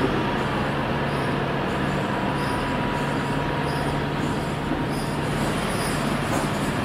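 Diesel engines of heavy construction machinery, Volvo FMX tipper trucks and a Cat excavator, running steadily with a low hum. A thin whine rises and fades in the middle.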